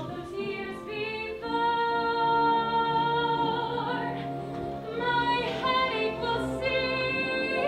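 Music: a slow operatic melody of long held notes, with singing.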